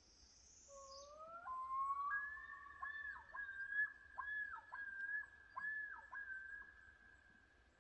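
Common loon yodel: a rising opening note that jumps up in pitch, then a run of repeated wavering phrases that each dip and return, ending in a long held note that fades out.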